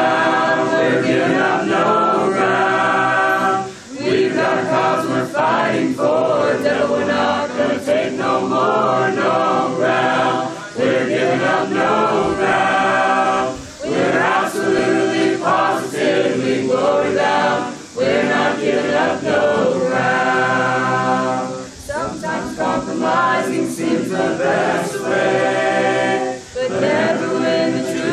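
Mixed choir of young men and women singing a gospel song a cappella in harmony, phrase after phrase with short breaths between.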